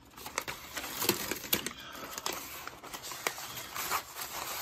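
Torn paper photo prints rustling and crinkling as the pieces are picked up and gathered by hand, in many small irregular crackles.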